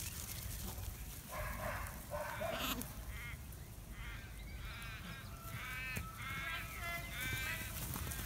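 A run of short, repeated honk-like animal calls, starting about three seconds in and coming several to a second in places, over a steady low rumble.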